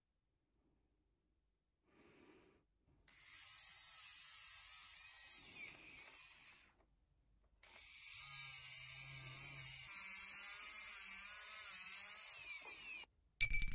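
Pen-style rotary tool (micro motor handpiece) spinning a polishing brush against a brass ring, running with a high whine in two spells of a few seconds with a short pause between. A few metallic clinks near the end.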